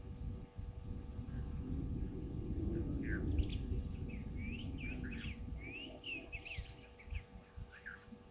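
A bird sings a run of quick, sliding whistled notes through the middle of the clip, over a steady high-pitched insect drone and a low, uneven rumble.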